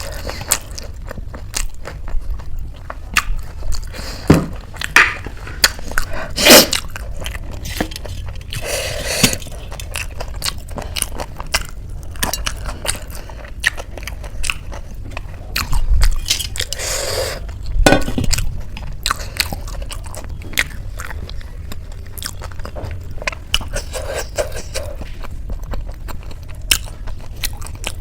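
Close-up chewing and crunching of crisp Indian street snacks, with a steady run of sharp crunches and mouth sounds; the louder bites come about four to seven seconds in and again around seventeen seconds.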